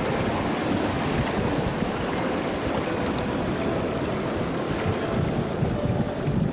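Steady rush of flowing river water, with wind noise on the microphone.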